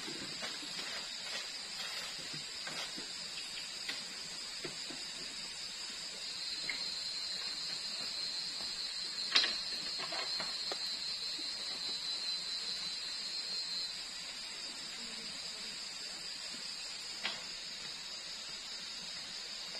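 Night insects chirring steadily in a high-pitched chorus, with one thinner, higher trill joining from about six seconds in to about fourteen. A single sharp click about nine seconds in is the loudest moment, with a few fainter clicks scattered around it.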